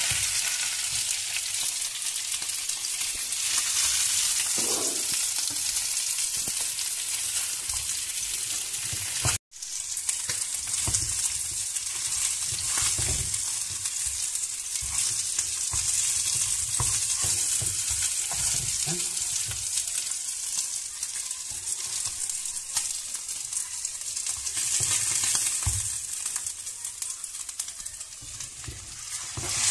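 Fish sizzling in hot oil in a frying pan, a steady hiss, with a few low knocks as pieces are lifted out with a plastic spatula. The sound drops out for an instant about a third of the way through.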